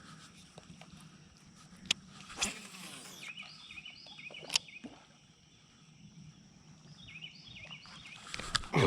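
Outdoor river ambience: a bird sings two short runs of quick repeated chirping notes over a steady high insect drone. A few sharp clicks come through, and there is a louder rush of noise right at the end.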